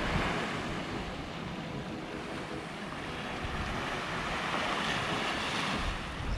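Small ocean waves breaking and washing up a sandy shore in a steady surf wash, with wind buffeting the microphone in low rumbling gusts, strongest near the end.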